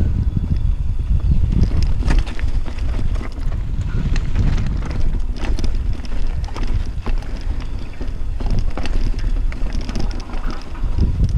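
Mountain bike rolling down a rocky track, its tyres crunching over loose stones and the bike rattling with frequent irregular knocks, under a steady rumble of wind on the microphone.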